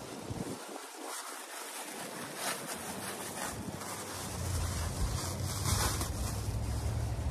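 Clear plastic wrapping crinkling and rustling as it is pulled off a rolled foam mattress. A low wind rumble on the microphone comes in about four seconds in.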